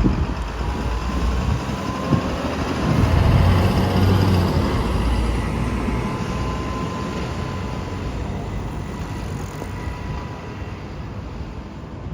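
A large vehicle passes close by. Its engine rumble is loudest about three to five seconds in, then fades away with a steady whine.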